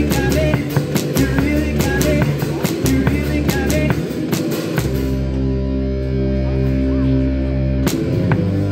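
A live band playing, with a drum kit keeping a steady beat. About five seconds in, the drums stop while one held chord rings on, and the drums come back in near the end.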